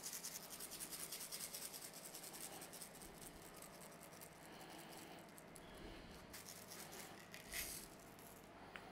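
Faint rattle of sugar sprinkles being scattered by hand, a quick run of tiny ticks for the first few seconds that fades to near silence.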